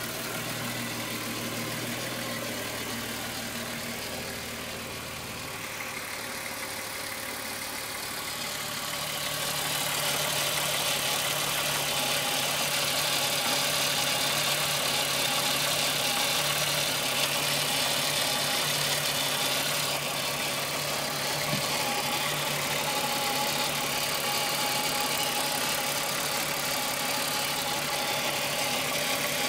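Volkswagen Golf VR6 2.9 engine idling steadily with a rubbing, chain-like noise, which the owner takes for a timing-chain problem that got worse after the upper hydraulic chain tensioner was replaced. The sound gets louder and brighter about a third of the way through.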